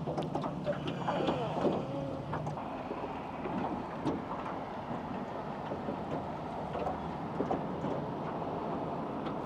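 Steady outdoor background noise with many small scattered clicks and light knocks.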